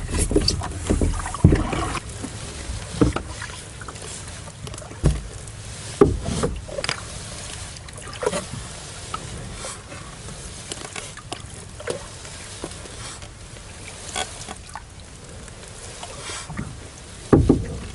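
Scattered knocks and bumps in an aluminium-free composite canoe, gear and paddle touching the hull, over a low steady background of wind and water.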